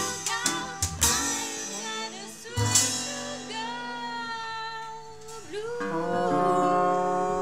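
Live acoustic band music: a resonator guitar plucks sharp notes in the first second, then a trombone holds long notes, and a singing voice joins about six seconds in.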